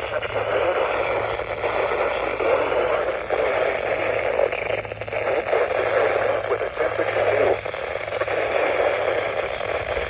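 NOAA Weather Radio broadcast received through heavy steady static with a low hum beneath, the announcer's voice lost in the noise: weak, noisy reception of the station.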